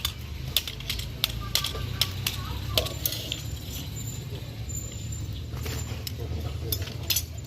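Scattered sharp clicks and small metallic taps of umbrella ribs and fittings being handled during repair, over a steady low rumble.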